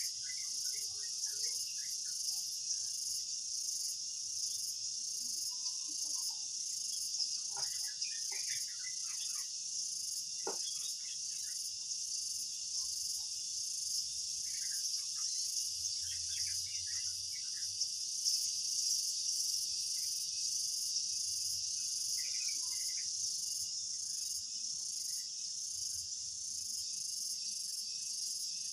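A steady, high-pitched chorus of insects chirping, crickets or similar, with a regular pulse. Scattered faint short chirps sound beneath it.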